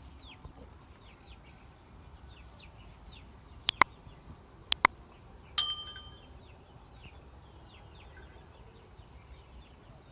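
Repeated short, high, falling chirps, typical of chickens or chicks, run through the clip. About three and a half seconds in come two pairs of sharp clicks, and a moment later a single metallic ding that rings briefly.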